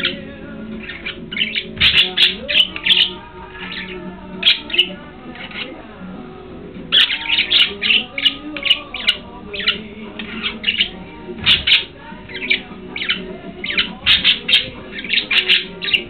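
Budgerigar hens chirping and squawking in quick runs of short, sharp calls, with a brief lull around the middle.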